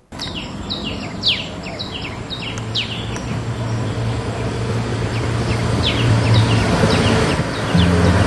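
1976 Volkswagen Type 2 (T2) van's air-cooled flat-four engine running as the van drives up and passes by: a steady hum that slowly grows louder and jumps up in level and pitch near the end. Birds chirp over it in quick downward notes, mostly in the first few seconds.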